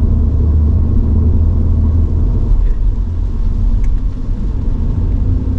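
Toyota GR86's 2.4-litre flat-four boxer engine and road noise while driving, a steady low drone.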